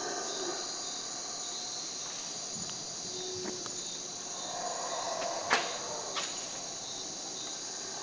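Steady high-pitched chorus of night insects in a lull between howler monkey roars, with one sharp click about five and a half seconds in.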